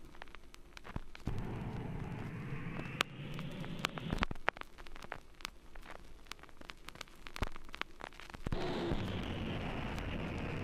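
Experimental electronic soundtrack: washes of noise that swell and fade, their pitch sweeping up and down, with sharp crackles and clicks scattered irregularly throughout. The noise drops back about halfway through and swells again near the end.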